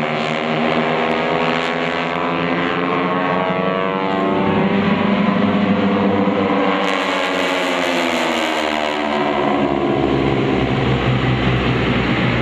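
Radial engines of a formation of North American T-6 Texans running together as the planes pass overhead, several engine notes sliding in pitch as they go by.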